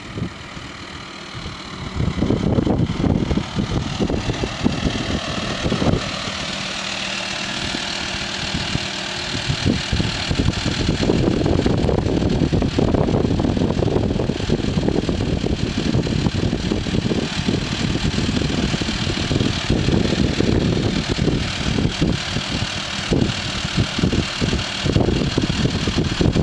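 Wind buffeting the microphone over the steady running of an engine.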